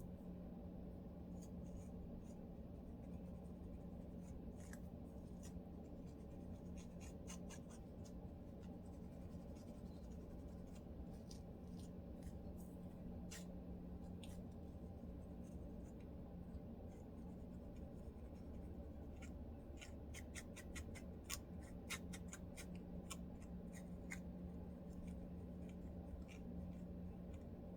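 Fine-toothed lice comb scratching a dry, dandruff-flaked scalp: faint short, irregular scratches that come thicker a little past two-thirds of the way, over a steady low hum.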